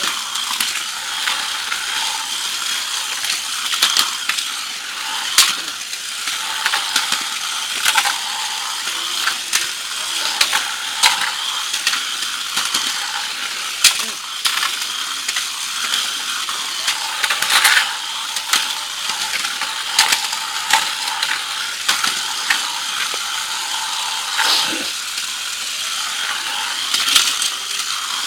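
Two Crush Gear battle toy cars running, their small electric motors and plastic gearboxes giving a steady high whirr. Frequent sharp clacks come as the toys knock together in the plastic arena.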